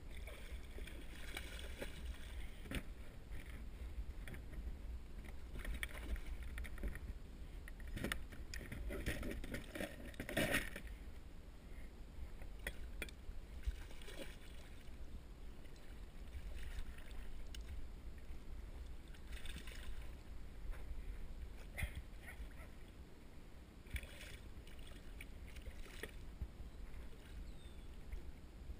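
A hooked catfish splashing and thrashing at the surface beside a plastic kayak as it is played toward a landing net, in repeated short bursts, with a few knocks of tackle and net against the hull. A steady low rumble runs underneath.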